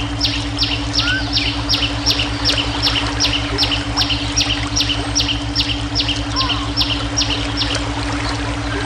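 A bird calling a long run of about twenty quick, high notes, each sliding downward, roughly three a second, stopping about seven seconds in. Underneath are steady low brainwave tones and the hiss of flowing water.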